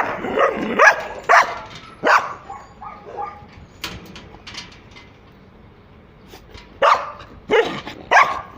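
Dog barking in short, sharp barks: a few barks, a quieter stretch in the middle, then barking again near the end.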